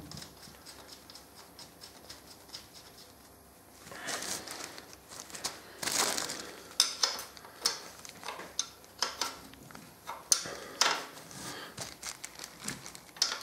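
Handling noises under a motorcycle's sump: from about four seconds in, rustling of wiping with a cloth or paper, broken by many sharp clicks and taps of a small metal tool against the sump plate bolts.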